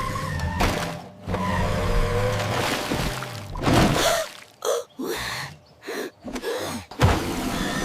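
Cartoon soundtrack: background music, then short broken vocal sounds like gasps or grunts in the second half, with a sharp hit near the end.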